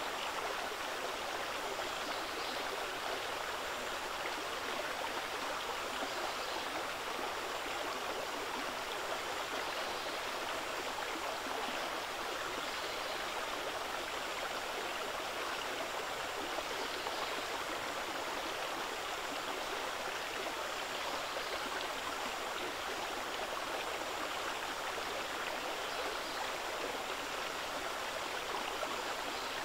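Water of a cold spring flowing steadily, an even, unbroken babbling rush.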